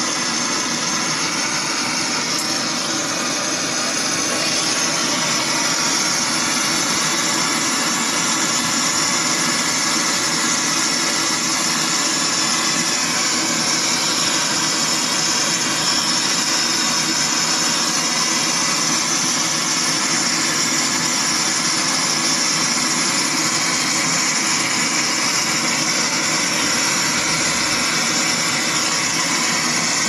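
Gas brazing torch burning with a steady, even hiss as an access valve is brazed onto a refrigerator compressor's tube.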